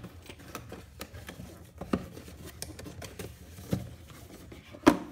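Cardboard packaging being handled: the binoculars' white inner box is slid and tilted, with rustling and scraping and three sharp knocks, the loudest near the end.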